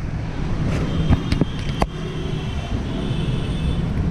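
A steady low rumble of background traffic, with a few sharp clicks.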